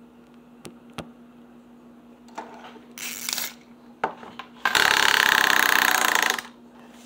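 Plastic candy-caddy toy's pull cord: a short rattle as the cord is drawn out, then a loud, rapid mechanical buzz for about a second and a half as the cord winds back into the toy. Two light clicks of handling near the start.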